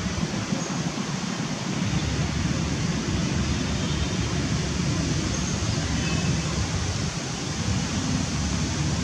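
Steady rushing outdoor background noise, heavier and rumbling in the low end from about two seconds in.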